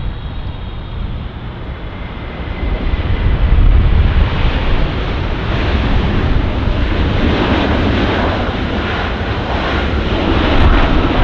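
Jet airliner engines, a steady rushing noise that builds about three to four seconds in and then stays loud.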